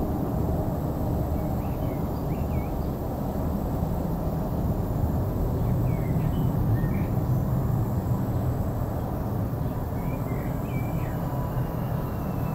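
Tupolev Tu-134 airliner landing and rolling out, heard from a distance: a steady low rumble from its two Soloviev D-30 turbofan engines. Small birds chirp over it now and then.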